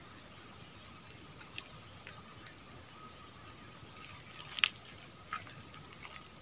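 Quiet dry-forest ambience: faint steady high-pitched tones under a light hiss, with scattered small clicks and crackles, the sharpest about four and a half seconds in.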